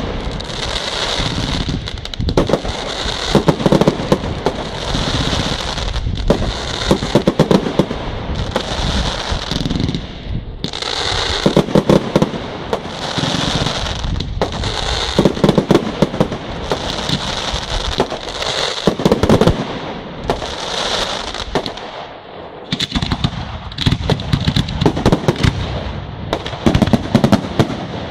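Professional aerial firework display: a rapid barrage of shells bursting with loud bangs, roughly one every one and a half to two seconds, each followed by crackling stars. The barrage eases briefly about two-thirds of the way through, then picks up again.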